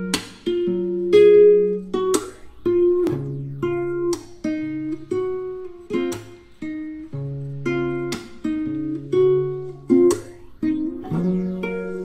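Background music: an acoustic guitar plays a gentle plucked chord pattern, with a new note or chord struck about once a second.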